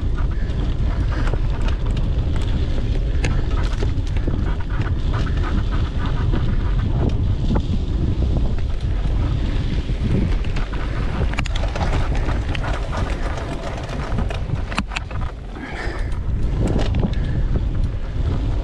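Wind buffeting the microphone of a camera riding along on a mountain bike, with scattered clicks and knocks from the bike rolling over the dirt trail. The rumble eases briefly about fifteen seconds in.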